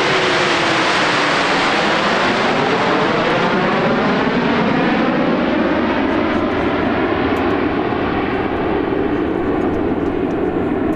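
A formation of CT-114 Tutor jets passing overhead, their single J85 turbojets giving a loud, even rush of jet noise. A slow up-and-down sweeping tone runs through it as the planes pass.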